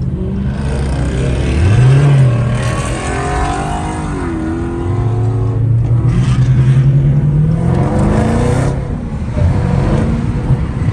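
Muscle-car V8 engine accelerating hard. Its note climbs briefly about two seconds in, then rises again in one long steady pull from about five seconds to nearly nine seconds before the throttle lifts.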